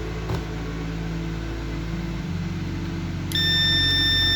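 Multimeter continuity beep: a single steady high-pitched tone lasting about a second near the end, set off as the probes are held on the MOSFET's pins. It sounds over a steady low hum.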